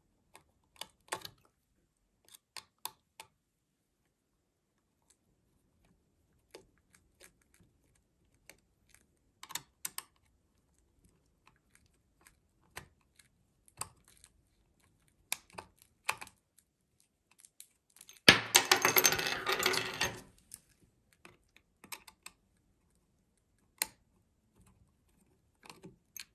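Small screwdriver clicking and ticking in a screw head on a plastic camera housing as the screw is worked loose, with light taps of plastic handling. About two-thirds of the way in comes a loud noisy burst lasting about two seconds.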